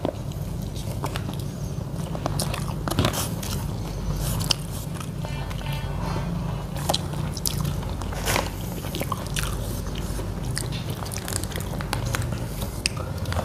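Close-up eating sounds: chewing and crunching food, with scattered crisp bites.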